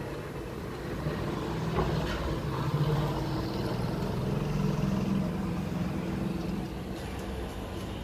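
A motor vehicle's engine passing on the street below: a low rumble that swells from about a second in, is loudest in the middle, and fades near the end.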